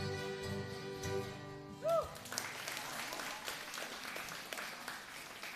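A small acoustic band of guitars and fiddle finishes a tune, the last notes ending with a short swooping pitch about two seconds in. The audience then applauds.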